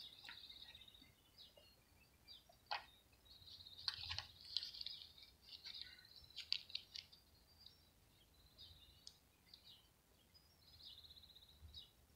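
Faint birdsong, repeated chirps and short rapid trills, with a few light clicks of small metal parts being handled.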